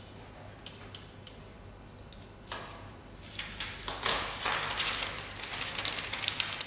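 A few faint clicks, then paper rustling and crackling from about two and a half seconds in as a sheet of chart-recorder paper is lifted and handled, with a sharp crackle about four seconds in.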